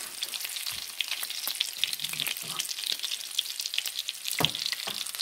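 Red chile salsa sizzling and spattering in a hot frying pan as egg-battered, cheese-stuffed huazontles are laid into it, a dense crackle of tiny pops. A couple of dull knocks come near the end.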